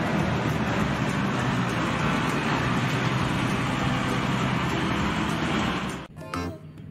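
Konecranes heavy forklift's diesel engine running steadily with a low hum as the machine drives; the sound fades out near the end.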